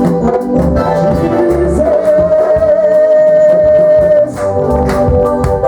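Live gospel band music with singing, over a steady bass line, with one long held melody note through the middle.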